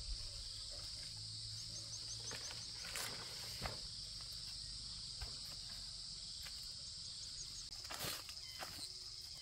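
Insects chirring steadily in a high, even drone, with a few soft knocks about three seconds in and a couple more near the end.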